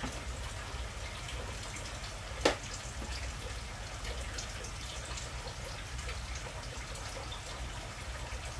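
Water dripping in a kitchen sink, a few faint drips and ticks over a steady low hum, with one sharp knock about two and a half seconds in.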